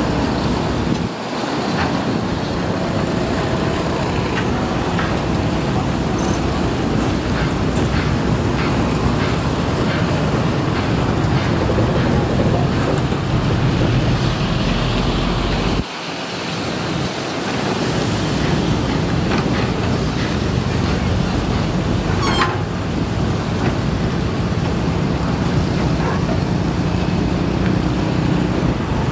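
Matador ME210LC-1 hydraulic excavator's diesel engine running steadily under load as it digs out a trench, with a sharp knock about three-quarters of the way through.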